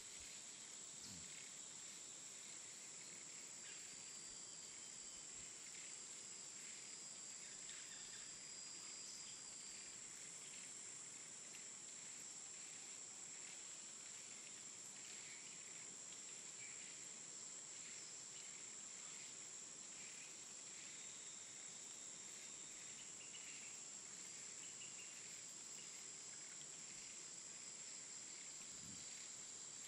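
Faint, steady high-pitched insect drone over quiet outdoor ambience.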